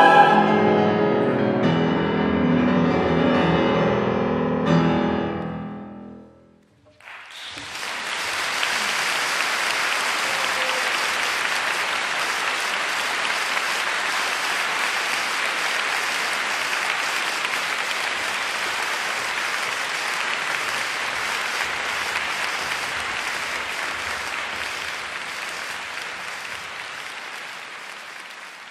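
A mixed four-part choir with piano holds a final chord that dies away about six seconds in. After a brief silence, an audience breaks into steady applause that slowly fades near the end.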